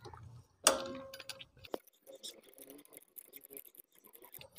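Metal clinks and small ticks of a spark plug spanner being fitted to and turning the spark plug in a Honda CD70's cylinder head, taking the plug out for a finger compression test. One clink with a short ring comes just under a second in, another click shortly after, then faint scattered ticks.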